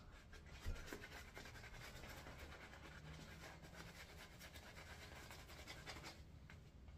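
Shaving brush working soap lather over a stubbled face: a faint, rapid, bristly scratching that stops shortly before the end, with one soft bump a little under a second in.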